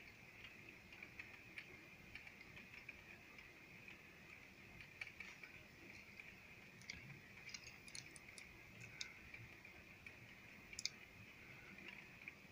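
Near silence: a faint steady high hiss with scattered light ticks, rain dripping and tapping on the window glass.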